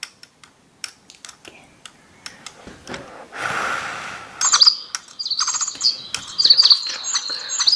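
A breathy blow about three and a half seconds in, then a DigiBird electronic toy bird answering with a run of repeated high chirps and tweets from its speaker, set off by the blow.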